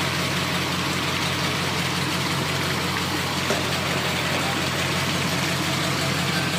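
A boat engine running steadily under way, a constant low drone under an even hiss of moving water.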